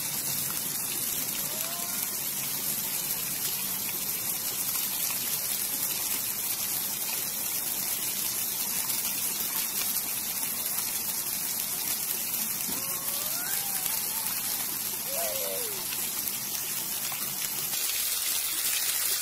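Steady splashing hiss of a small fountain's low water jets falling back into the basin. A child's faint high voice rises and falls briefly a couple of times over it, mostly past the middle.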